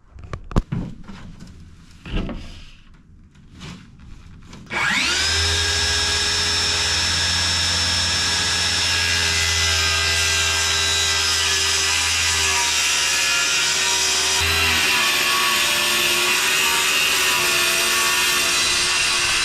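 A few light knocks, then a circular saw spins up with a rising whine about five seconds in and runs steadily, cutting through a plywood board along an edge guide. Its tone shifts about ten seconds later as the cut goes on.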